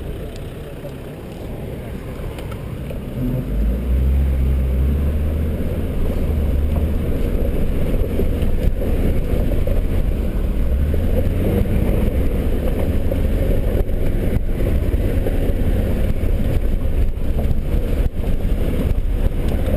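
Land Rover's engine running, heard inside the cabin as it drives a rough dirt track, getting louder about three and a half seconds in and holding there, with a few sharp knocks and rattles from the bumps.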